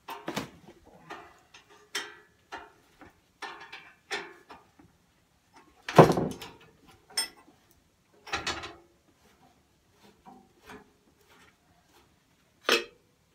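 Irregular metallic knocks and clatters of hand tools and parts as the handlebars are unbolted from a 1953 Gravely Model L walk-behind tractor, the loudest knock about six seconds in and another sharp one near the end.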